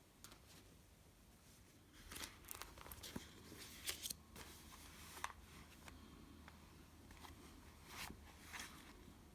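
Near silence with faint handling sounds: soft rustles and a few light clicks, clustered about two to four seconds in and again near the end.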